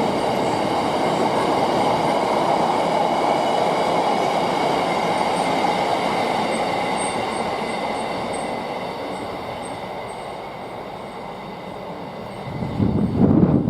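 Freight train wagons rolling past, a steady rumble of wheels on rail with thin high squealing tones from the wheels, fading as the train draws away. Near the end, wind buffets the microphone.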